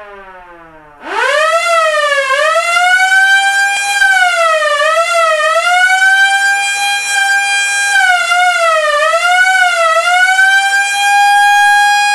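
Police car siren wailing. About a second in, a faint falling tone gives way to a rising sweep, followed by long held wails broken by short, quicker up-and-down warbles.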